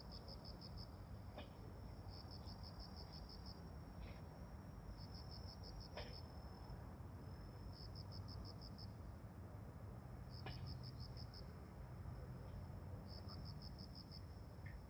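Insects chirping, faint: a short burst of about eight quick pulses every two and a half seconds or so, over a steady high trill, with a low distant hum beneath.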